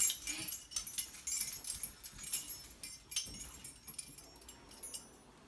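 Small metal pieces jingling and clinking on and off, dying away after about four seconds.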